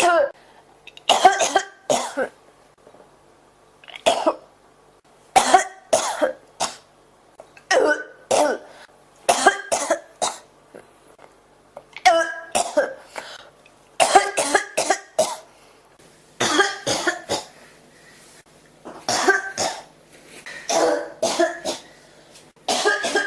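A person coughing over and over in a persistent fit: sharp coughs in groups of one to three, some with voice in them, recurring every second or two with brief pauses between.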